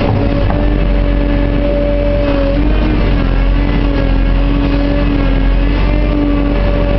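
JCB 532-120 telehandler's diesel engine running steadily, heard from inside the cab, with a steady whine over a low rumble.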